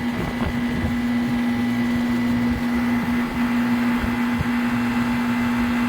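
Outdoor air-conditioning condensing unit running: a steady compressor hum under the even whoosh of the condenser fan.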